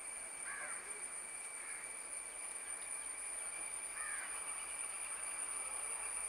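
A crow cawing three times, over the faint, steady sound of a WDP4D diesel-hauled express approaching, which grows slightly louder near the end.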